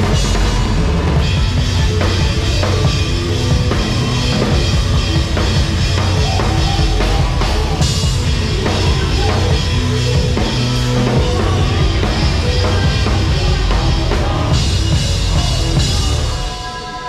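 Live rock band playing loud through the stage PA, with the drum kit to the fore, bass and guitars underneath; the music breaks off near the end.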